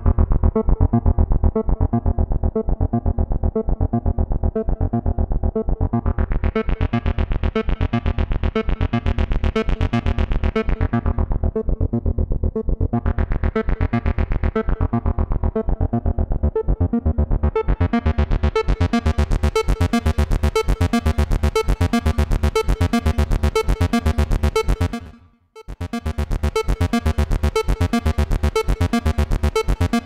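Access Virus TI synthesizer playing a fast repeating bass sequence while its filter cutoff is turned by hand: the tone brightens and darkens a few times, then opens fully about two-thirds of the way through. The sound cuts out for about half a second near the end and comes straight back.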